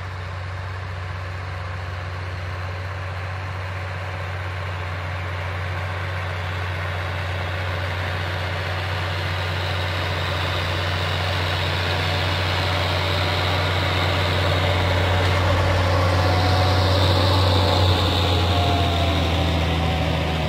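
John Deere 6600 tractor's six-cylinder diesel engine running steadily under load while pulling a rotary power harrow and seed drill across tilled soil, growing steadily louder as it approaches and passes close by near the end.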